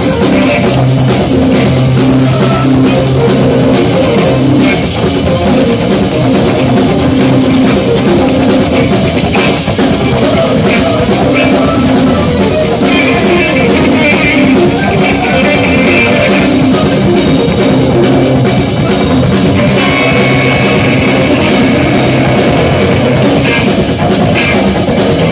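Live instrumental jazz-rock band playing loud: electric guitar, electric bass and a drum kit with busy cymbals, with long held low notes underneath.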